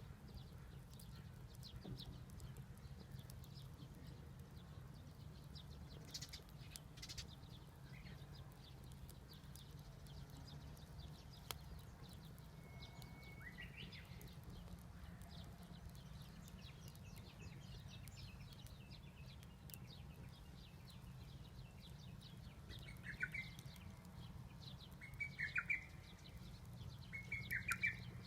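Birds calling: a single whistled note about halfway through, then four short chirping calls near the end, over a faint steady low rumble and scattered faint ticks.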